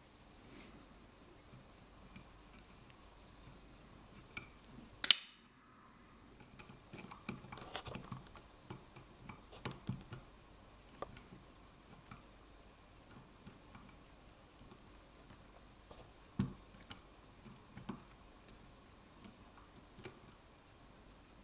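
Faint, irregular small metal clicks and taps of a lock pick and tension wrench working the pins of an ASEC pin-tumbler lock cylinder, with one sharp click about five seconds in.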